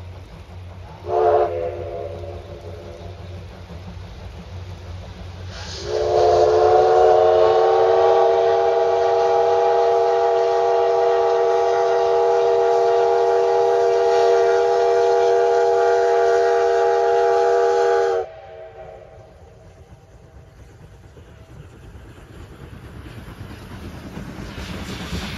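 D51 steam locomotive's whistle: a short toot about a second in, then one long blast of about twelve seconds that cuts off sharply. Under it the train's low rumble grows louder near the end as the locomotive draws near.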